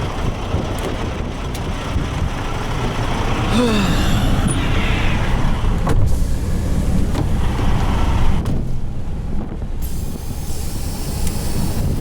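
Semi-truck running with a steady low rumble of engine and road noise. A short falling tone comes through about four seconds in.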